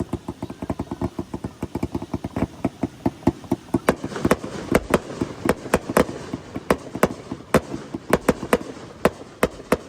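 Fireworks going off in a rapid run. Quick small pops and shots fill the first few seconds, then louder, separate bangs take over from about four seconds in.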